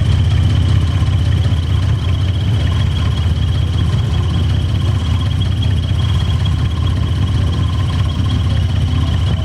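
Old car's engine running steadily at idle, a deep low exhaust rumble, with a thin steady high-pitched tone above it.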